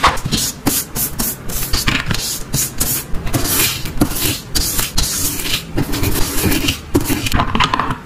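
Small plastic toy cleaning-set pieces handled and knocked together: a fast run of clicks, taps and scrapes.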